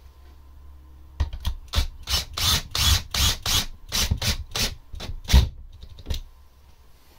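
Cordless drill/driver driving a screw through a wooden rack into the wall, in a rapid series of short rattling bursts, about three a second, for about five seconds.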